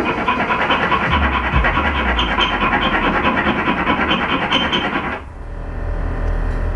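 A hand file rasps in quick repeated strokes against a steel stud on the inner fender lip of a car's rear wheel well, taking it down so the tire stops rubbing when the air suspension is lowered. The filing stops abruptly about five seconds in, and music follows.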